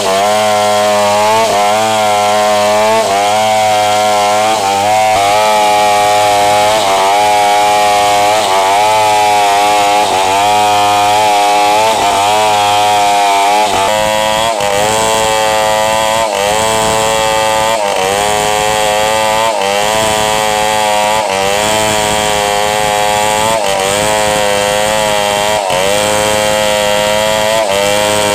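Stihl 070 two-stroke chainsaw running under load, ripping lengthwise through a hard red meranti log. The engine pitch dips and recovers every second or two as the chain bites into the wood.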